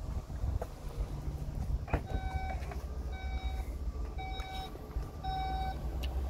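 SEAT Tarraco's powered tailgate opening: a latch click about two seconds in, then warning beeps at a steady pitch, each about half a second long and about a second apart, while the tailgate rises.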